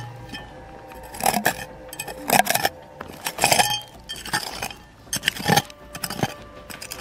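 Hard objects clinking and scraping against each other in a string of about eight irregular knocks, each with a brief ring.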